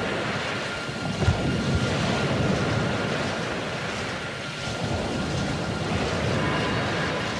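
Dense rushing noise of surf and wind, with a few faint steady high tones held above it.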